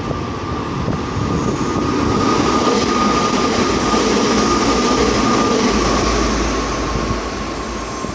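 Hanshin electric commuter train passing over a level crossing: wheels and motors run by, loudest in the middle and ending with a low rumble. A steady high tone sounds through the first two-thirds and fades.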